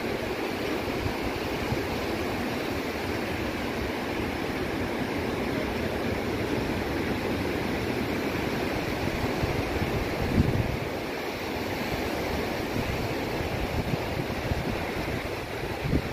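Ocean surf breaking and washing on a beach: a steady roar of waves, with wind rumbling on the microphone. A brief low thump comes about ten seconds in.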